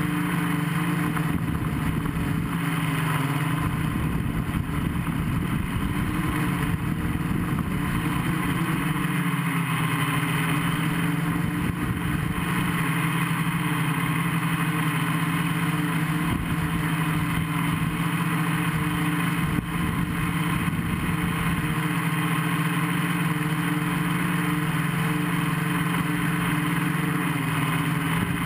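Gaui 500X quadcopter's electric motors and propellers, heard from a camera on board: a steady, loud buzzing hum whose pitch shifts slightly as the throttle changes.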